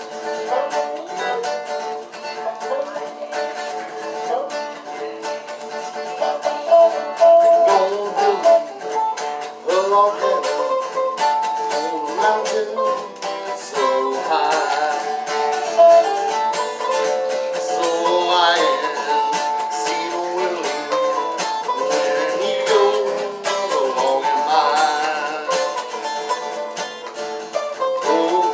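Banjo and acoustic guitar playing an instrumental old-time folk tune, a plucked melody over strummed rhythm.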